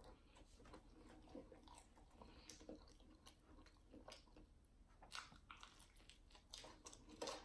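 Faint chewing and mouth sounds of someone eating a fried bologna sandwich: soft wet smacks and clicks, with one louder sound near the end as she bites into the sandwich.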